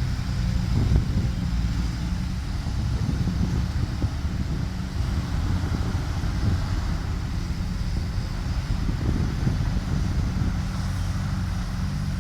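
Heavy diesel engine of earthmoving machinery, such as a tracked excavator, running steadily with a low hum.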